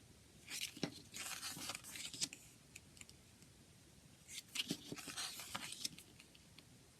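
Plastic shrink-wrap being torn and crinkled off a CD case, in two bouts of crackling with sharp clicks, the second starting about four seconds in.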